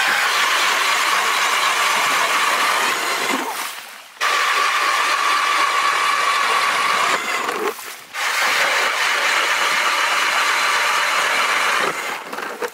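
Battery-powered electric ice auger drilling through lake ice: a steady motor whine over the grinding of the bit cutting ice. It comes in three stretches of about four seconds, with short breaks between.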